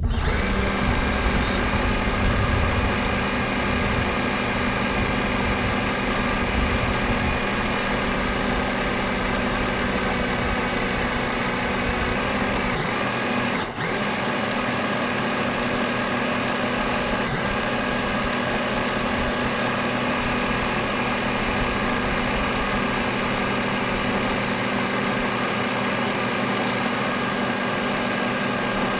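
RC model boat's motor running at a steady pitch, a whine with a hum beneath it, picked up by the microphone of a camera mounted on the boat's deck. It dips briefly about halfway through.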